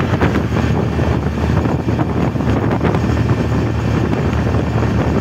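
Auto-rickshaw running along the road: a loud, steady low engine drone with rattle, road noise and wind on the microphone.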